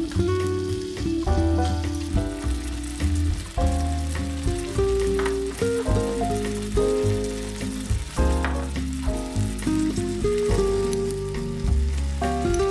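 Tomato and onion sizzling in a miniature steel pot over a tiny burner, with light stirring from a small slotted spatula. Melodic background music with a bass line is louder than the sizzle.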